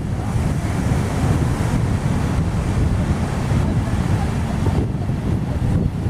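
Strong wind buffeting the microphone, a heavy low rumble over the steady rush of large waves.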